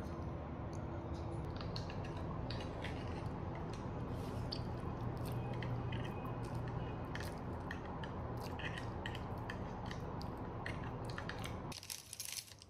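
A person eating noodles with chopsticks: chewing, with many light clicks and taps, over a steady low hum that cuts off near the end.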